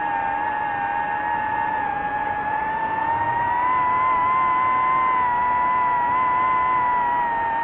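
DJI FPV drone's motors and propellers whining steadily in flight. The pitch rises a few seconds in, holds, and eases down near the end as the throttle changes.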